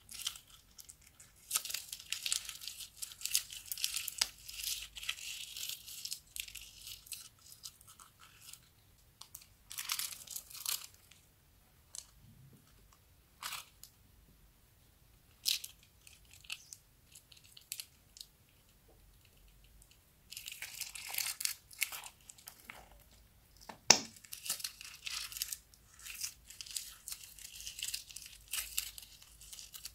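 Plastic piping bags crinkling and crackling as they are squeezed, pressing glitter slime out onto a slab of clear slime. The crackling comes in uneven spells from under a second to several seconds long. Near the middle there are a couple of sharp snips as scissors cut a bag's tip.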